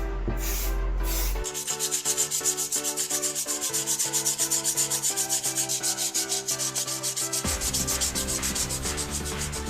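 Sandpaper rubbed back and forth on a part of a toy car being restored, in quick regular strokes of about four to five a second that start about one and a half seconds in.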